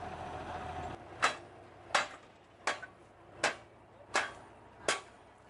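A steel bar striking the steel grating of a drain cover six times at an even pace, about one strike every 0.7 seconds, each a sharp metallic knock with a brief ring.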